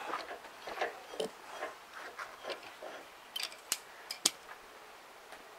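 Light metallic clinks, taps and scrapes of hand tools working on a round baler's roller shaft and bearing housing during a bearing replacement, with a few sharper clicks a little past the middle.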